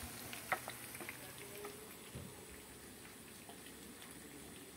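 Indian mackerel frying in hot oil in a pan: a steady sizzle with scattered sharp pops, most in the first couple of seconds, then a quieter sizzle.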